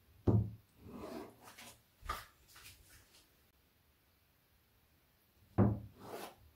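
Kitchen knife cutting through a block of tofu and knocking down onto a plastic cutting board: a sharp knock about a quarter second in and another near the end, with softer taps and scrapes of the blade between.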